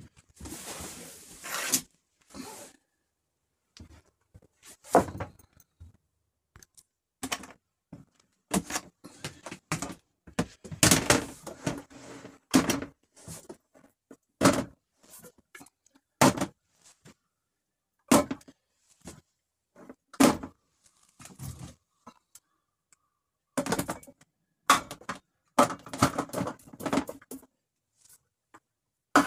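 Food packages, jars and plastic containers being handled and set down in a wooden under-seat storage bin: a run of separate knocks, thunks and rustles, with a longer rustle in the first two seconds.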